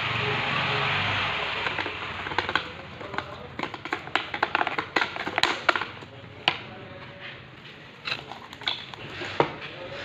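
Plastic bag and bubble wrap crinkling and crackling as a wrapped package is handled and unpacked: a steady rustling hiss for the first couple of seconds, then many sharp, irregular crackles.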